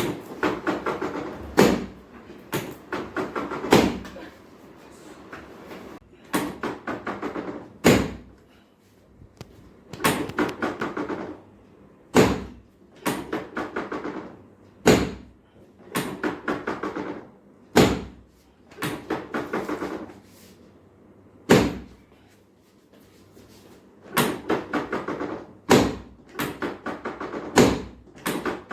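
Repeated short bursts of rapid tapping, about eight taps a second, each set off by a single sharp knock, coming every two to three seconds: percussive hand work during chiropractic treatment.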